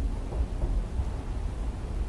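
Steady rain ambience over a continuous, uneven low rumble, with no separate drops or strikes standing out.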